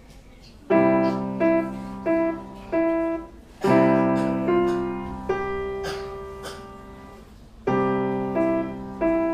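Grand piano playing a slow piece in short phrases: after a brief pause, each phrase opens with a full chord followed by a few single melody notes, all ringing and fading away.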